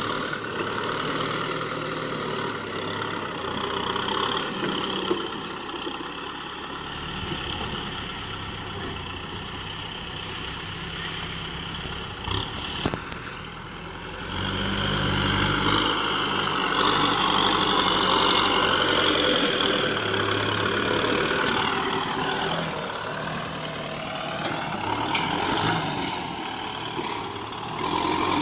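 Kubota M6040SU tractor's diesel engine running as the tractor works in loose dirt, growing louder for several seconds about halfway through, then settling again.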